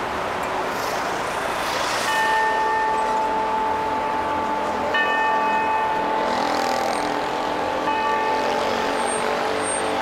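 Wako clock tower bell striking the eight o'clock hour: three strikes about three seconds apart, each ringing on and fading. Steady city traffic runs underneath.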